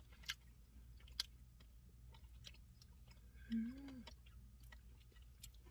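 Quiet mouth sounds of someone eating an ice cream Blizzard with a spoon: scattered small clicks and smacks. A short hummed voice sound comes about three and a half seconds in.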